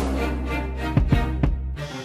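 Background music: sustained instrumental tones over a low bass, punctuated by several sharp drum hits.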